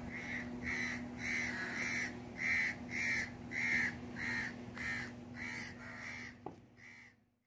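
Crow cawing over and over, about two caws a second, growing fainter near the end.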